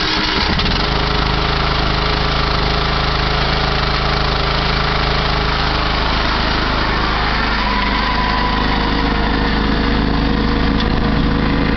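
Riding lawn mower engine running steadily as the mower drives off across the grass, its note changing about halfway through.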